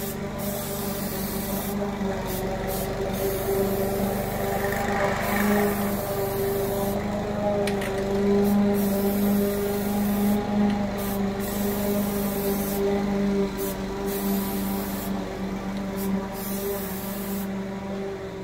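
A lawnmower engine running steadily in the background, a constant pitched drone, while an aerosol can of Plasti Dip hisses in repeated bursts with short pauses between them.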